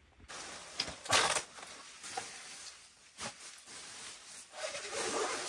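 Rustling and handling noise with a few sharp knocks, the loudest about a second in.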